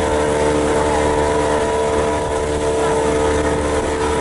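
Motorboat engine running at a steady speed, a constant even drone with no change in pitch.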